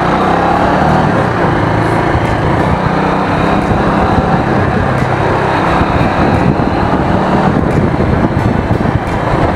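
Motorcycle riding slowly along a street: its engine running under a steady loud rush of wind on the camera microphone, with a rapid uneven rumble underneath.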